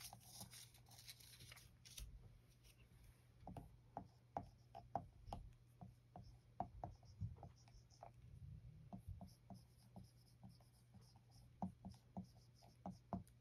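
Dry-erase marker writing on a whiteboard: faint squeaks and taps of the pen tip, stroke by stroke.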